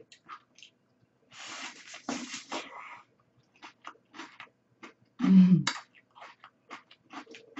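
Close-miked chewing of a crisp wafer ice-cream cone: a scatter of small crunches and mouth clicks, with a stretch of breathy noise a second or two in. About five seconds in, a short loud vocal sound stands out.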